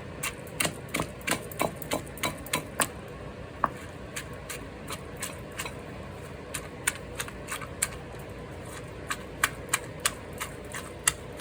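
Wooden pestle knocking in a mortar as shredded green papaya salad is lightly pounded and mixed: quick sharp knocks, about three a second at first, sparse in the middle, then picking up again near the end.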